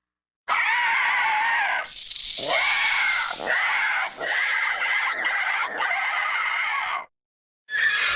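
Cartoon dinosaur sound effect: a screeching creature call begins about half a second in. It jumps to a shrill high screech near two seconds, then carries on as a run of pulsing cries that stop at about seven seconds. A short second call follows near the end.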